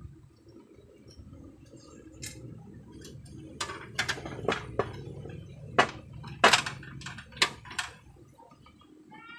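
Hands working wires and small parts inside a sheet-metal electrical box: a low rustling, then a string of sharp clicks and clinks, thickest in the second half.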